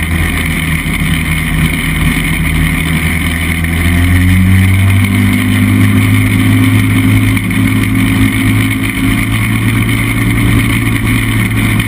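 Chinook Plus 2 ultralight aircraft's engine and propeller running steadily as the plane taxis, the engine note rising slightly about four to five seconds in.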